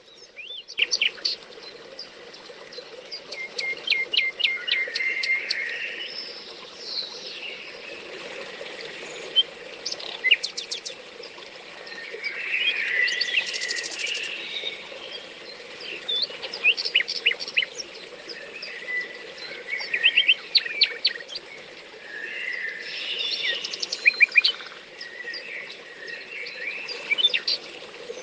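Several small songbirds singing and calling outdoors, with repeated quick chirps and short trills coming and going, over a steady low background noise.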